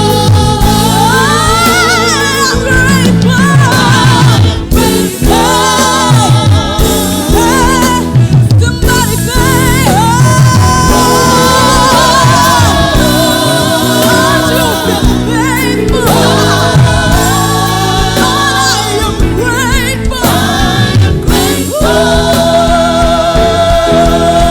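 Gospel song: voices singing a melody with vibrato over a steady instrumental accompaniment with a moving bass line.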